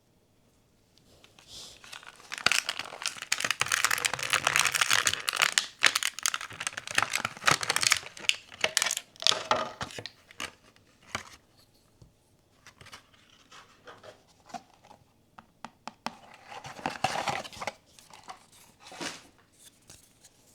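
Blind-box packaging being torn open and crinkled, a dense crackle with sharp clicks for several seconds, then scattered ticks and a second shorter burst of crinkling near the end.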